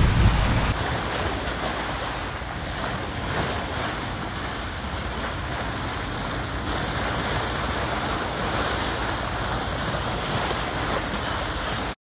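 Sea water rushing past the hull of a sailing yacht under way, with wind noise on the microphone; a steady hiss with no engine heard, stopping abruptly near the end.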